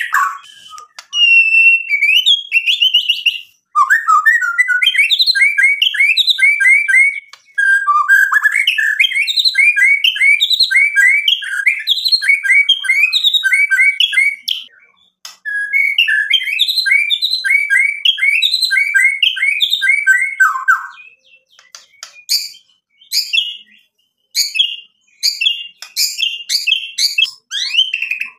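Male white-rumped shama singing loudly: long runs of rapid repeated whistled notes, broken by a few short pauses, turning to scattered sharp notes in the last few seconds.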